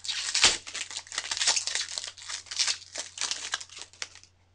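Foil wrapper of a Bowman Chrome baseball card pack being torn open and crinkled by hand: a dense run of crackles and rustles that stops about four seconds in. A faint low hum runs underneath.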